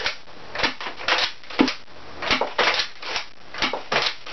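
A Nerf Longstrike foam-dart blaster fitted with an Xplorer Xpower kit, bolt sled and priming grip, being primed and fired in rapid succession. It makes a quick, regular run of plastic clacks and snaps, about two a second, as the grip is pulled back and pushed forward and each dart is shot.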